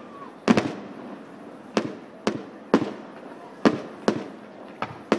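Aerial fireworks display: shells bursting in the sky in a run of about nine sharp bangs at uneven intervals, each dying away in a short echo.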